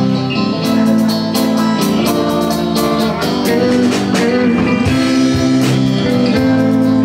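Live band playing the instrumental opening of a country song: electric guitars over bass and a drum kit, with drum and cymbal hits keeping the beat.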